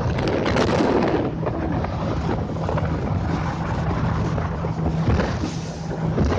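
Motorboat engine running steadily under way, with a loud rushing of wind on the microphone.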